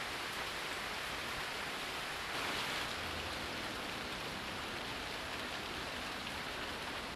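Steady rain falling, heard from under the tiled roof of a covered wooden wall walkway, with water dripping from the eaves; briefly a little heavier about two and a half seconds in.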